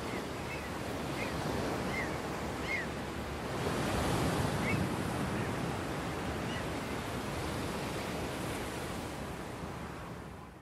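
Ocean surf washing on a beach, with a swell of louder wash about four seconds in and a few short high chirps scattered through the first half. The sound fades out at the end.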